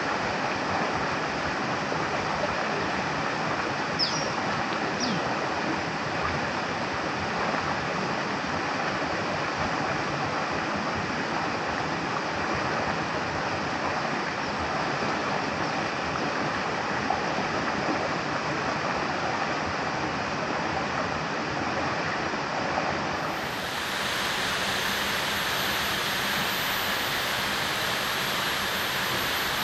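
Steady rushing of flowing river water, with two short high chirps about four and five seconds in. Near the end a thin, high, steady whine joins the water noise.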